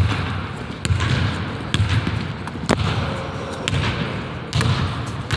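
Basketball bouncing on a hardwood gym floor, a dull thud about once a second, with a few sharp knocks between bounces.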